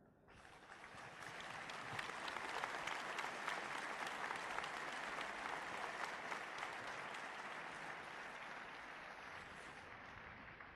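A large crowd applauding, starting suddenly, swelling within about two seconds and slowly dying away near the end.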